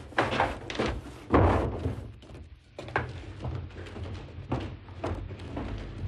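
A door banging, with a loud thud about a second and a half in and several lighter knocks after it.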